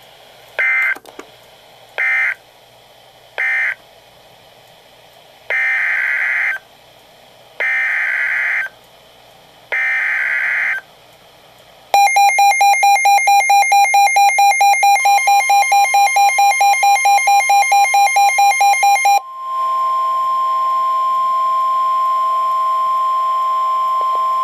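NOAA Weather Radio alert signalling. Three short buzzy digital data bursts mark the end of one message, then three longer bursts carry the SAME header for the next severe thunderstorm warning. After that comes fast beeping, about five beeps a second, from the receiver's alarm, overlapping and then giving way to the steady high-pitched warning alarm tone, held for about ten seconds.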